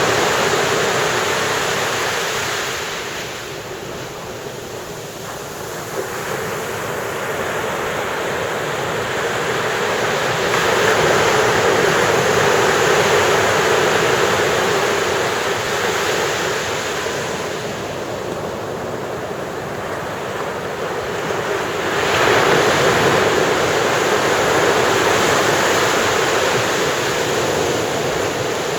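Ocean surf breaking on a beach and washing up the sand. It swells and fades in slow surges about ten seconds apart, and a fresh wave breaks sharply about three quarters of the way through.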